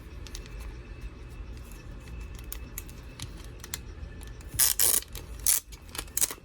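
Hands opening a pack of trading cards: light clicks and crinkling of the wrapper, with a few loud crinkling rustles a little past the middle and again near the end.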